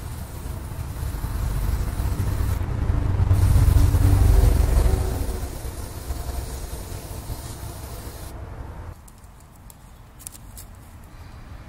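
A low rumble like a passing motor vehicle, swelling to its loudest about four seconds in and then fading. It drops away near the end, where a few faint clicks are heard.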